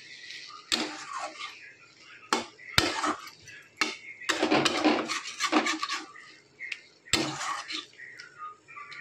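A flat metal spatula scraping and knocking around a metal kadai while stirring a thick potato-and-greens curry. The scrapes are irregular, with a few sharp clinks.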